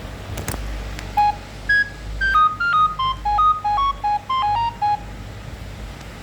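Nokia 2760 phone's speaker playing a Nokia 7210 ringtone: a quick melody of about fifteen short beeping notes, one at a time. It starts about a second in and ends about five seconds in.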